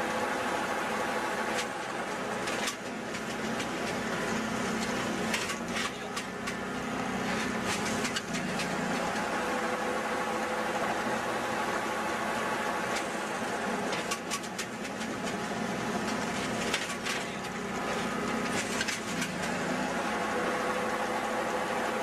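Tree baler running with a steady motor hum, with scattered rustling and clicking as trees are pushed through its netting ring.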